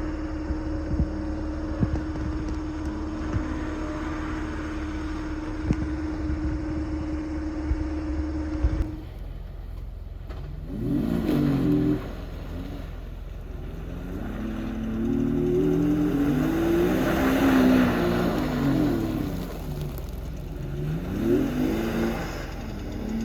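A steady mechanical hum with scattered clicks, which changes abruptly about nine seconds in to a vehicle engine revving up and down repeatedly, as on an off-road climb.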